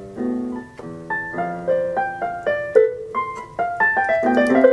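Casio CTK-3500 portable keyboard played with both hands on its default piano tone: a simple tune of single notes struck several a second over held lower notes, growing a little louder near the end.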